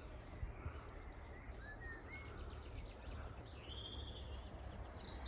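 Faint outdoor ambience: a low steady background rumble with a few scattered small-bird chirps and calls, a couple of short chirps about two seconds in and higher calls later on.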